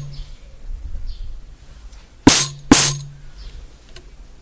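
Hand-held tambourine struck twice in quick succession by hand, each hit a skin thump with a bright jingle of its metal zils. In the game two strikes is the signal to clap hands.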